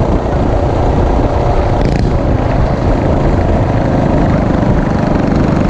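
Coleman CT200U minibike's single-cylinder four-stroke engine, fitted with a power-up kit and RLV silencer, running steadily at cruising speed.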